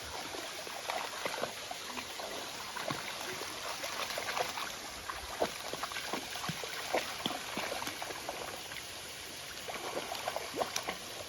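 Water trickling and splashing over rocks in a small stream, a steady rush dotted with small irregular splashes.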